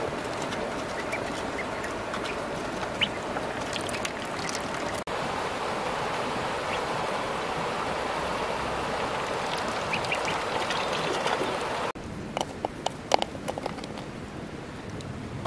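A flock of ducklings peeping continuously as they feed at a trough. About twelve seconds in the peeping stops abruptly and gives way to a quieter background with a few sharp clicks.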